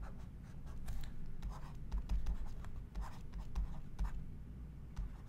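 Stylus scratching and tapping on a drawing tablet as words are handwritten, a series of short ticks and brief scratches over a low steady hum.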